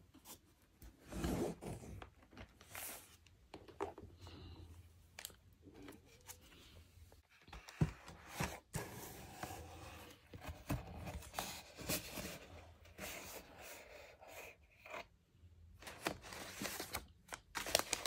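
Parcel packaging being unpacked by hand: fairly quiet, irregular rustling, crinkling and tearing, with scattered clicks and knocks.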